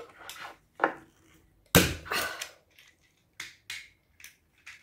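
Small plastic toy car being handled and fitted together: a series of sharp plastic clicks, with one louder crunching clatter about two seconds in.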